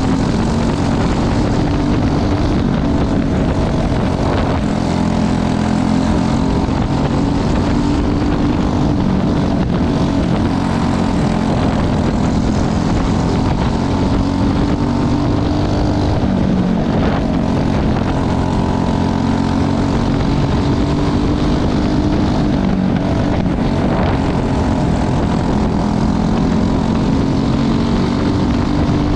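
Several Briggs & Stratton 206 single-cylinder four-stroke kart engines running hard at racing speed, a continuous high buzzing drone without let-up.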